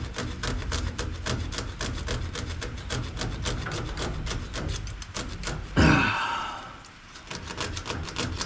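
A knife sawing and scraping at bale twine wound around a baler's toothed roller, in quick rough strokes several times a second. About six seconds in a short loud vocal sound, a grunt or sigh from the worker, is the loudest thing, followed by a brief lull before the scraping resumes.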